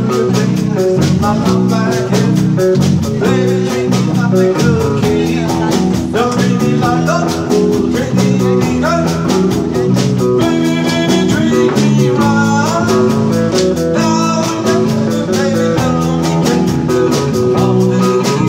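Live band playing a country-style number on electric and acoustic guitars, bass guitar and drum kit, with a steady drum beat.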